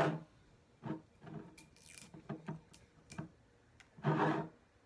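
Scattered small clicks and rubbing from hands working the plastic seal off a liqueur bottle's cap, with a short voice sound about four seconds in.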